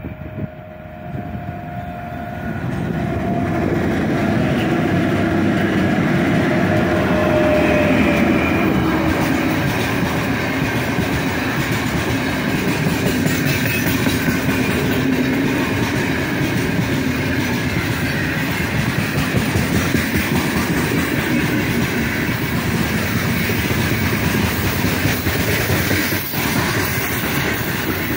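4ES5K 'Ermak' electric locomotive hauling a freight train up a grade approaches and passes with a whine of motors, then a long line of loaded open freight wagons rolls by close with steady wheel noise and clatter over the rails.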